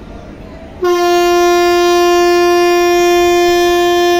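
A WAP-4 electric locomotive's horn sounds one long, steady, single-note blast. It starts about a second in and lasts about three and a half seconds: the signal as the train departs.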